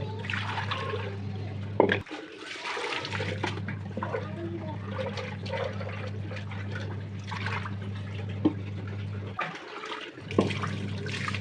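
Water running and splashing, over a steady low hum that cuts out twice. There is a sharp knock about two seconds in and another near the end.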